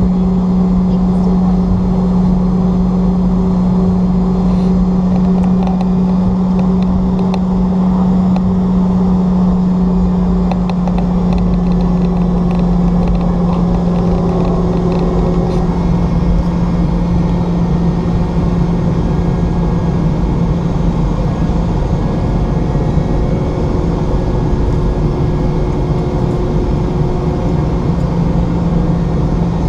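Cabin noise of a Boeing 717: its rear-mounted Rolls-Royce BR715 turbofans running steadily with a strong low hum that dips slightly in pitch about halfway through, over a deep rumble.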